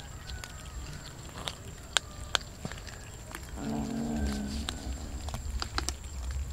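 Cats chewing raw fish, with sharp crunches and clicks of bone and teeth. About halfway through, a cat gives a low growl lasting about a second.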